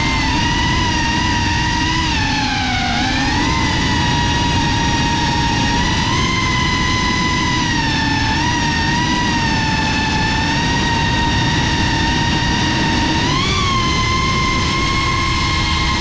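Drone's electric motors and propellers whining steadily, the pitch dipping about three seconds in and lifting briefly near the end.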